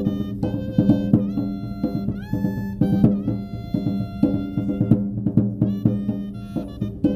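Tambora y clarinete music: clarinets playing a melody with a few slides up into notes, over regular beats of the tambora, a double-headed bass drum.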